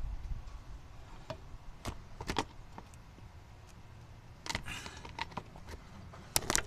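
Low, steady rumble of the Chevy Blazer's engine running with its valve cover off. Sharp clicks and knocks come now and then, the loudest pair near the end.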